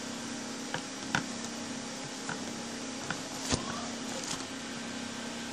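Steady low electrical hum with hiss, and a handful of light clicks and taps scattered through, the loudest about three and a half seconds in: the sound of a phone being held and handled while recording.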